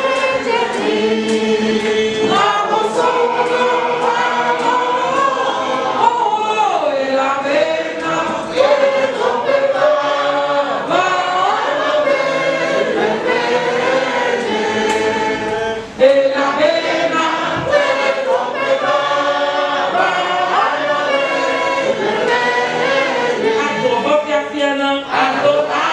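A congregation singing a gospel hymn together, with a woman leading on a microphone; the voices hold long notes and glide between them.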